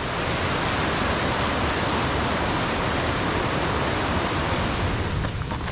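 Whitewater mountain creek rushing and cascading over rocks: a steady, even rush of water.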